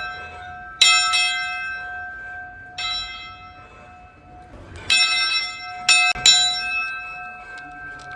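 Steam locomotive bell rung by pulling its rope: about six clangs at uneven intervals, each leaving a long, steady ring that sustains between strikes.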